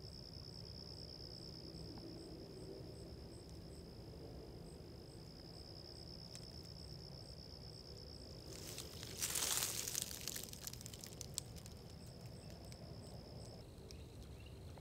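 A steady, faint, high-pitched insect trill that drops slightly in pitch about 13.5 seconds in. A brief rustle cuts across it about 9 seconds in.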